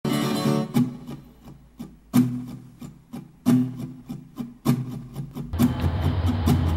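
Intro music of sharply struck chords that ring and die away, one about every second and a half. About five and a half seconds in, a steady low diesel-locomotive rumble comes in beneath the music.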